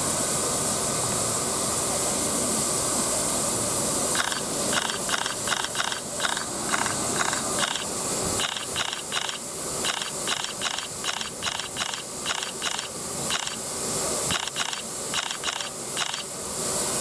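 Steam locomotive 60163 Tornado, an LNER Peppercorn A1 Pacific, hissing steam steadily. About four seconds in, a quick, uneven rhythmic pulsing joins the hiss, roughly three beats a second, stopping and starting.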